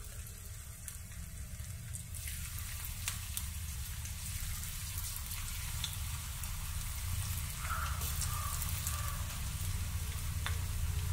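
Batter-coated bitter gourd pieces sizzling in hot oil as they are dropped in, with scattered small pops. The sizzle swells about two seconds in and grows as more pieces go in.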